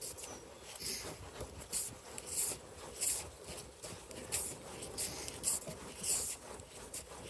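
A rag rubbing over a motorcycle drive chain in short, irregular strokes, about one every half to one second, to wipe off WD-40 and loosened grime.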